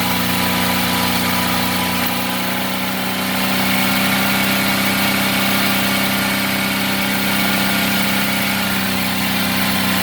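Ford 3.5 L EcoBoost twin-turbo V6 in a 2012 F-150 running steadily at a fast idle, its gas pedal propped down so it revs on its own. The engine note rises slightly about two seconds in, and a thin high whine joins in for a few seconds mid-way.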